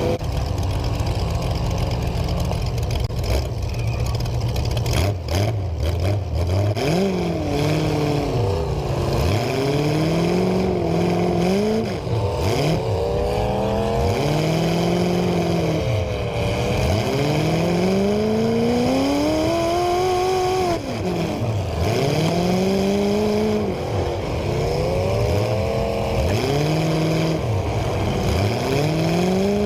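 Demolition derby car engines revving up and easing off again and again, the pitch swinging up and down every few seconds.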